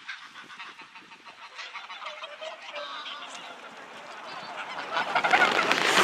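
Greylag geese honking, scattered calls at first, then a louder, busier chorus in the last second or so.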